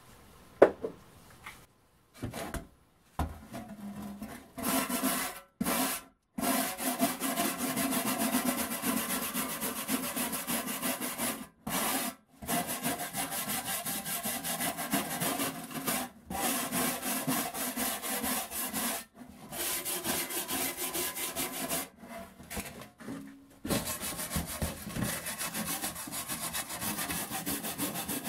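A hand file scraping the rust and crust off the steel side of an old ammunition box, in quick repeated back-and-forth strokes that stop and restart several times. A knock about a second in comes before the scraping starts.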